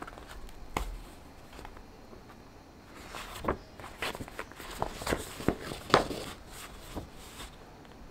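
Paper signatures of a text block rustling and crinkling as the pages are lifted and handled during hand sewing, with light taps and clicks. The busiest stretch is in the middle, with the sharpest crinkle a little before the end.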